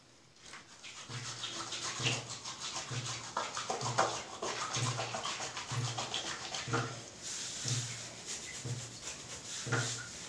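Wet hands rubbing a bar of homemade soap into a lather: quick, wet, scratchy rubbing strokes that go on without a break. A short low hum repeats about once a second under the rubbing.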